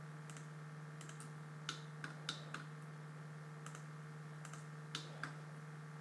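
Computer mouse clicking as circles are selected one by one, about a dozen short sharp clicks at uneven intervals, over a steady low hum.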